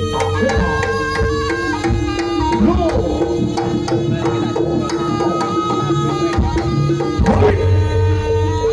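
Live Jaranan ensemble music: a busy pattern of hand-drum strokes under a long held melody line and pitched gong-chime notes.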